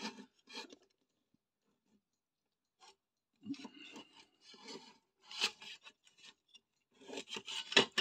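The casing of an old Unitra Zatra power supply being handled and shifted on a wooden desk: scraping and rubbing in short bouts, with a pause of a couple of seconds about a second in.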